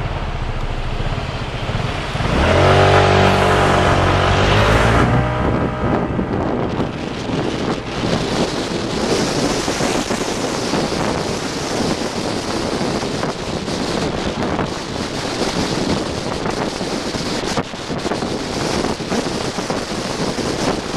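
Road and wind noise from a vehicle travelling through city traffic. A few seconds in, an engine's pitched drone comes up loudly for about two and a half seconds, then fades back into the steady rush.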